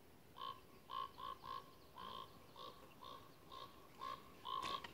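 An animal calling in a faint run of short calls at one pitch, about two to three a second.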